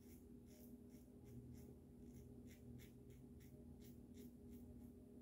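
Safety razor scraping through lathered stubble in short, quick strokes, about two to three a second, faint.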